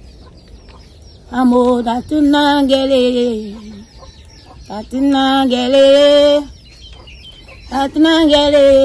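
Rooster crowing: four drawn-out calls, each a little over a second long with short pauses between, one falling in pitch at its end.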